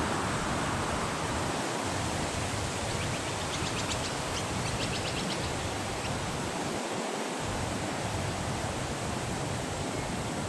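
Steady rushing noise, with a short run of rapid, high chirps from a bird a few seconds in.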